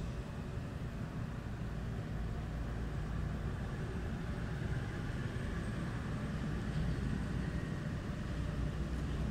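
Steady low rumble of outdoor background noise, even throughout, with no clear event standing out.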